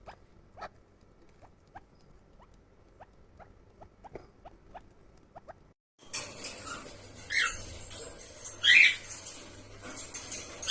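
Short, sharp squeaks from a small animal, about two a second, rising in pitch. After a cut, a few loud squawking calls over a noisy background.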